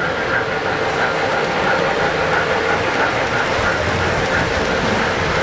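O-scale model trains running on the layout's track: a steady rolling rumble and clatter of wheels and motors.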